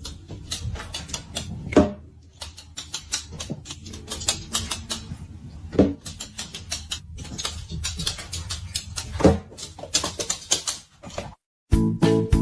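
Rapid, irregular clicking and tapping in a small room, broken by three short animal calls a few seconds apart. Music starts near the end.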